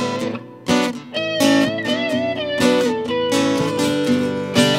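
Acoustic guitar strumming with an electric guitar playing lead over it, in an instrumental break with no singing. The lead has held notes that waver and bend in pitch.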